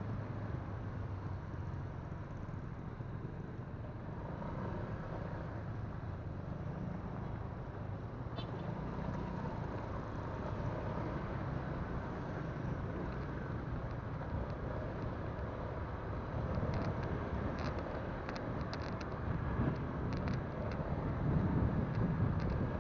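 Motorcycle running at a steady road speed, picked up by a phone riding along on the bike, as a continuous low rumble of engine and wind that swells slightly near the end.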